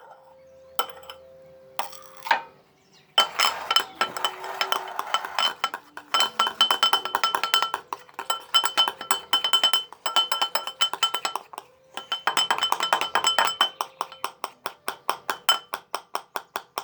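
A small spoon clinking rapidly against a glass, many light strikes a second with a ringing tone, as a soap and shampoo mixture is stirred. It starts with a few clinks and runs almost without a break from about three seconds in, pausing briefly a few times.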